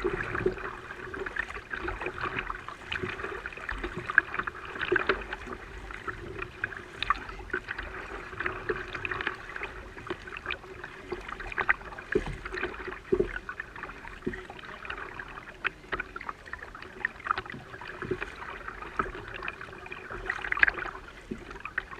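Water sloshing and slapping against a fishing kayak's hull as it moves, with frequent small irregular knocks and splashes over a faint steady hum.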